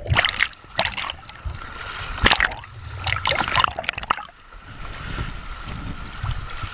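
Whitewater splashing around a kayak on a river: several sharp splashes in the first few seconds, then a steadier rush of flowing water.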